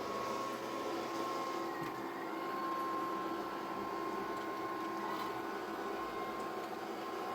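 Robot vacuum running, a steady motor whir with a thin steady whine on top, cutting in suddenly.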